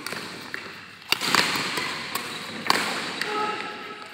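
Sharp hits during a doubles match rally: a quick pair of strikes about a second in and another near three seconds, over a wash of hall noise.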